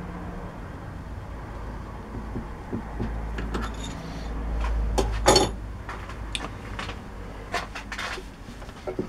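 Metal tools and parts being handled at a lathe: scattered clinks and knocks of metal on metal, with one louder knock about five seconds in, over a low steady hum.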